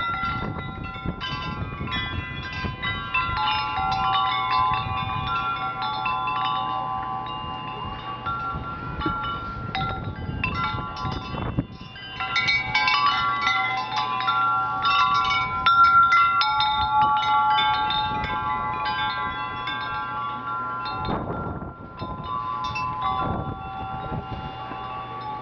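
Metal wind chimes ringing irregularly in gusty storm wind, many tones sounding and overlapping, with gusts buffeting the microphone a few times.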